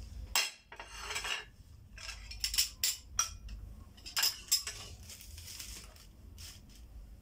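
Dishes and metal spoons clinking and clattering as they are gathered and set down on a plate, in a string of short knocks spread over several seconds.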